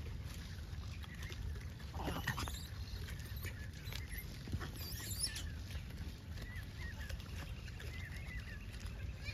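Gray langur troop feeding on fruit scattered on the ground: brief rustles about two seconds in and again around five seconds, and faint high chirps later on, over a steady low rumble.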